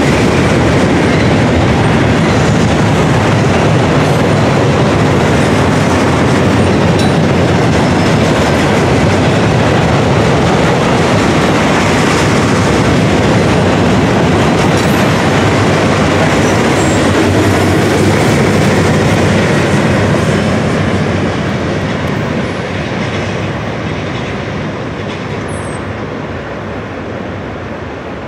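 Freight train of gondola cars rolling past, steel wheels on rail making a loud, steady noise that fades over the last several seconds as the end of the train goes by.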